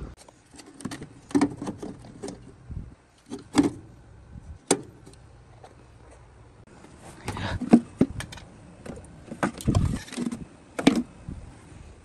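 Irregular clicks, knocks and light rattling of things being handled, sparse at first and busier in the second half, with a few sharper knocks.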